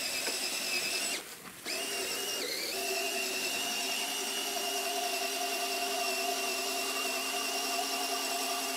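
Hand-held electric drill with a large bit boring through a timber beam: a steady motor whine that cuts out briefly about a second in, dips in pitch once as it starts again, then runs evenly.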